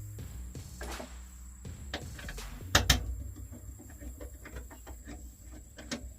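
Scattered clicks and knocks from hands and tools at work, with two loud sharp knocks close together about three seconds in, over a low steady hum.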